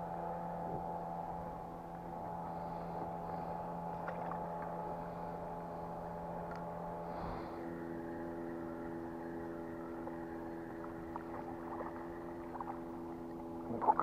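Boat's outboard motor running steadily at low speed, a constant drone; about seven seconds in its pitch pattern shifts as the engine speed changes.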